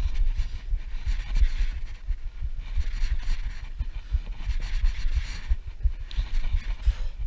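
Wind buffeting the microphone, over which a Shimano spinning reel is being cranked steadily as line is wound in.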